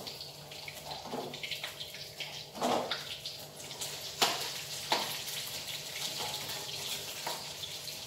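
Tap water running steadily into a kitchen sink, with two sharp clinks of dishes or utensils about four and five seconds in.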